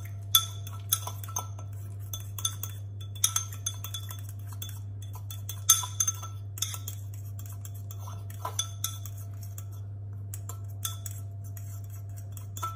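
A metal fork stirring a spice paste in a ceramic bowl, with irregular light clinks and scrapes against the bowl's side and a steady low hum underneath.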